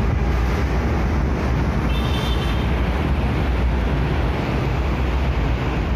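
Steady low rumble of road traffic and motorbikes at a railway level crossing, with a short high-pitched beep about two seconds in.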